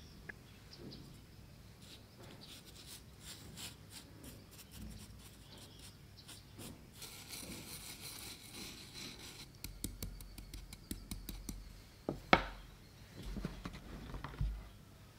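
Wooden spoon spreading and smoothing crushed Oreo cookie crumbs over cheesecake batter: soft scraping and rubbing with light clicks, and one sharp tap about twelve seconds in.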